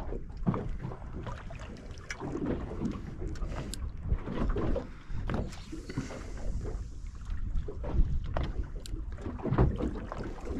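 Small boat on the open sea: water slapping and knocking irregularly against the hull, with wind buffeting the microphone. A brief hiss rises around the middle.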